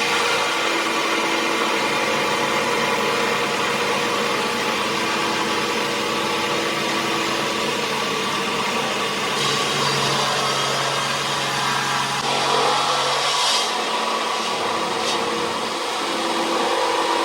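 Heavy machinery running steadily: a dense mechanical noise with several steady hums, a lower hum joining about ten seconds in for a few seconds.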